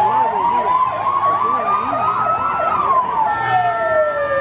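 Police sirens sounding together: one slow wail gliding up and then down, and a second fast warble at about three cycles a second that stops about two-thirds of the way in. Steady held tones join near the end.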